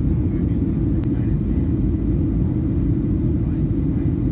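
Jet airliner cabin noise heard from a window seat: a steady, even low rumble of engines and rushing air. A faint click comes about a second in.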